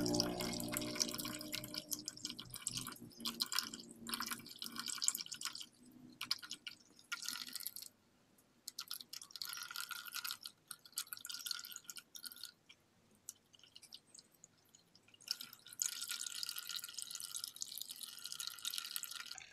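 Blue-green acid leach solution poured in a thin stream from a bowl into a plastic basin of liquid, trickling and splashing in uneven spurts with short pauses: the spent solution being decanted off its sediment.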